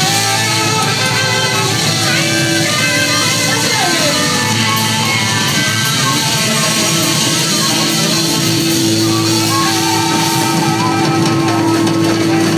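Live blues-rock band playing, with electric guitar prominent. One note is held for several seconds over the band in the second half.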